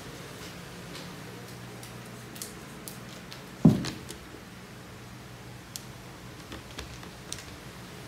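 Scattered light taps and clicks from plastic baskets being carried and handled, with one dull thump about halfway through, the loudest sound.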